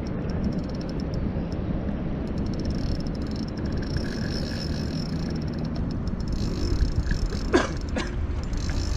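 Wind buffeting the microphone over open water, with a fishing reel being cranked in light ticking against the pull of a hooked tarpon. Two short sharp sounds come close together a little over a second before the end.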